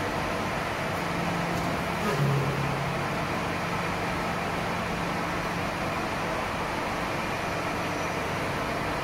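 Steady running machinery noise with a low hum. About two seconds in, the hum drops in pitch and briefly gets louder.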